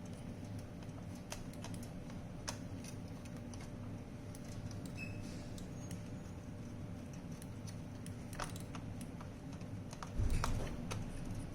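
Scattered light clicks and taps of a robot vacuum cleaner's plastic parts and small components being handled during mainboard installation, over a steady low hum. A duller, louder bump comes about ten seconds in.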